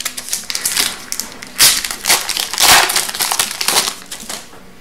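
Foil wrapper of an Upper Deck Series 2 hockey card pack crinkling and crackling as it is torn open and the cards are pulled out, with two louder bursts of crumpling about a second and a half in and near the middle.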